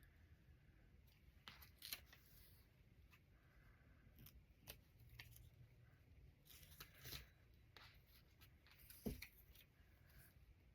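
Near silence with faint, scattered rustles and small clicks of paper cutouts being handled, the loudest about two seconds in and again near nine seconds.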